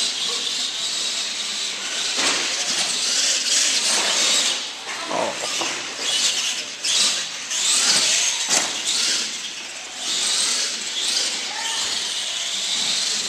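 Radio-controlled monster trucks racing on a carpeted track: a high hiss of motors and tyres that swells and fades as they speed up and slow down.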